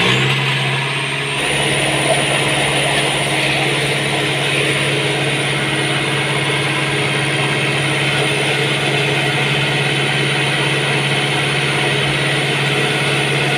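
Yanmar three-cylinder diesel engine driving a water pump, just started. It rises briefly in speed at first, then runs steadily at one speed while the freshly primed pump draws water.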